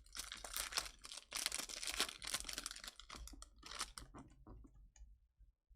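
A trading-card pack wrapper crinkling and tearing as it is ripped open, dense and crackly for about three seconds, then a few lighter clicks and rustles of cards being handled.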